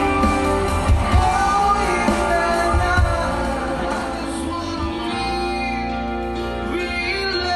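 A live band playing a song with electric guitars, bass and drums, and a singer's voice over it. The low end drops away about five seconds in.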